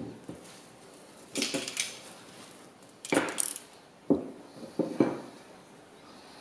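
Wooden pieces, a hardwood sanding block and a mahogany board, handled and set down on a wooden tabletop: a few sharp wooden knocks and clunks, with two short noisy handling bursts between them.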